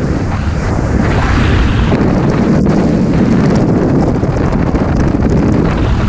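Freefall wind blasting over the microphone of a camera worn by a skydiver: a loud, steady rushing noise, heaviest in the low end.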